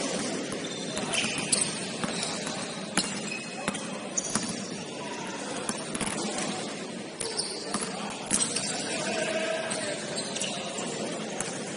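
Basketball game sounds: the ball bouncing repeatedly on the court with short shoe squeaks, over players' voices.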